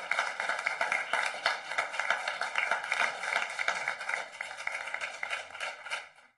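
Applause, a dense patter of many hands clapping, fading out about six seconds in.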